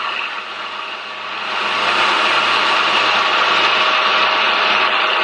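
Milling machine running, its spindle turning a boring bar that is not yet cutting. A steady machine noise that dips slightly and comes back up about a second and a half in.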